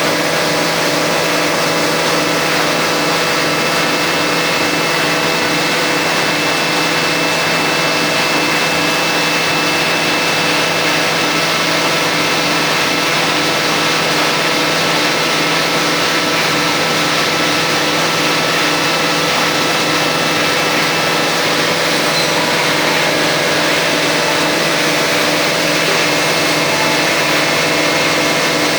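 Rotary veneer lathe and its factory machinery running steadily: a loud, constant mechanical hum with several held tones over a wide hiss, unchanging throughout.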